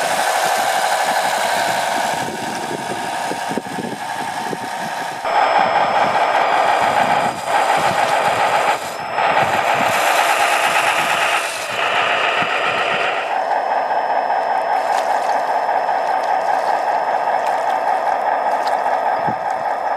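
Electric motor and geared drivetrain of a scale RC model Tatra 130 six-wheel truck whining steadily as it drives on beach sand, with some scraping and rattling. The level jumps up and down abruptly several times.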